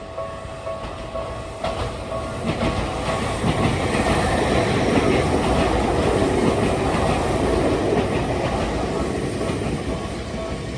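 A Tokyu Oimachi Line train passing over a level crossing, its wheels clicking over the rail joints. It swells from about two seconds in, is loudest in the middle, and fades toward the end. The crossing's warning bell rings steadily under it, clearest at the start and again near the end.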